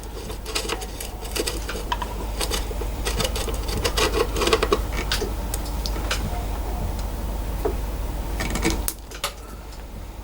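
Small metallic clicks and rattles of a screwdriver and screws as wiring is taken off the side of a metal lathe, over a steady low hum that stops about nine seconds in.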